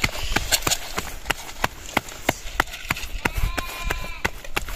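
Sharp knocks in a steady rhythm, about three a second, with a brief pitched call a little over three seconds in.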